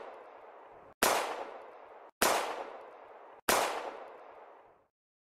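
Handgun shots: three sharp shots about a second and a quarter apart, each ringing out with a fading echo that is cut short by the next, after the tail of a shot fired just before. The last one dies away about a second before the end.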